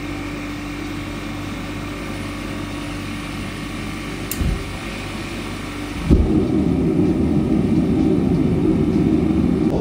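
An electric air blower feeding a crucible furnace hums steadily just after being switched on. About six seconds in, after a knock and a thump, a louder rough rush of air starts as air is let through the pipe into the furnace.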